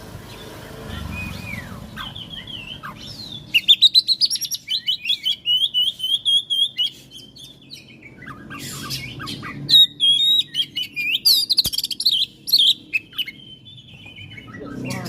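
Oriental magpie-robin (kacer) singing: fast runs of short whistled notes with high chirps mixed in, in two loud spells, one from about three and a half seconds in and another from about ten seconds in.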